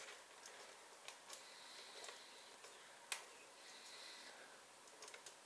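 Near silence, with a few faint sharp clicks and taps of hands and a tool against the mower engine's metal parts, the clearest about three seconds in.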